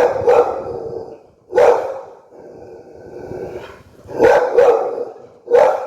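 Pit bull barking angrily: about six loud barks in a broken rhythm, a quick pair, a single, a pause of over two seconds, then another pair and a single.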